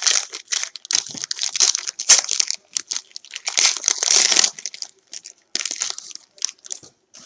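Foil trading-card pack wrapper, a 2017 Panini Prestige jumbo pack, crinkling as it is torn open by hand: a dense run of crackling for about four and a half seconds, then a few separate crinkles near the end.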